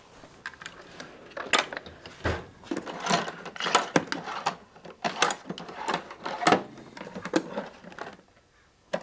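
Irregular clattering and clicking of small hard objects being handled and rummaged through, busiest from about a second and a half in until about eight seconds in.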